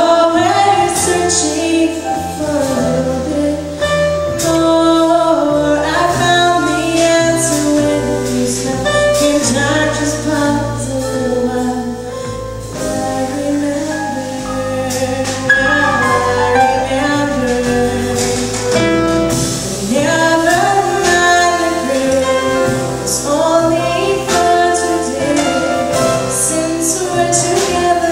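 Live jazz band playing: a woman sings a gliding melody over upright bass, piano and a drum kit with steady cymbal strokes.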